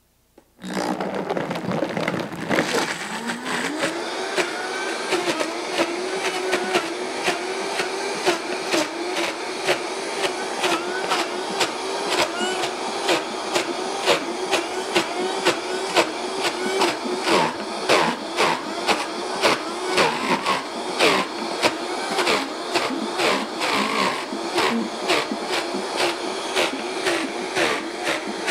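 Vitamix blender motor starting on low about half a second in, ramping up to high speed over the next few seconds and then running steadily, blending frozen strawberries and raspberries into sorbet. Frequent sharp knocks run through it as the tamper pushes the frozen fruit down into the blades.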